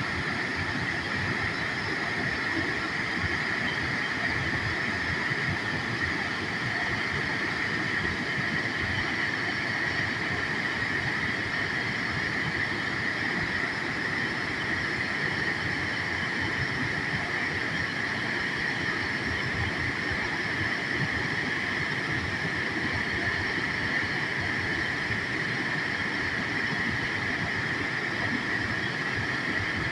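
Waterfall water pouring and rushing in a steady, unbroken roar of noise.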